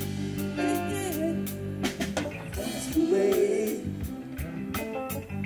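Live band playing: electric guitar, electric bass and drum kit keeping a steady beat, with a man singing over it.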